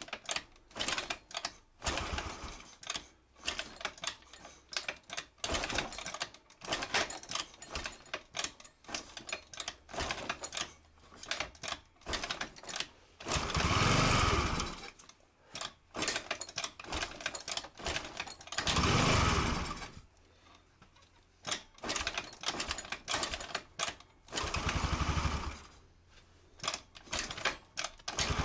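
Small scooter engine on repeated start attempts, sputtering in short irregular bursts. It catches three times, running for a second or so each time before dying again.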